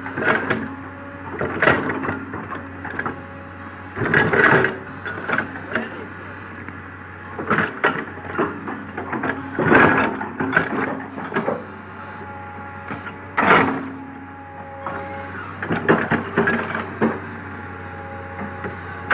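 Komatsu PC200 hydraulic excavator working: a steady diesel engine hum under repeated loud cracking and crunching bursts, every second or two, as the bucket digs into the ground.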